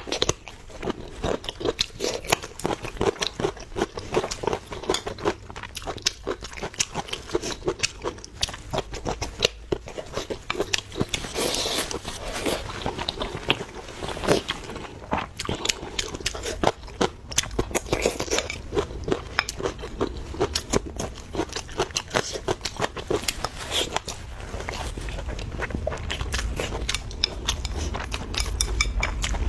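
Close-up chewing and biting: a dense, irregular run of wet smacks, crunches and small clicks. A low rumble swells in near the end.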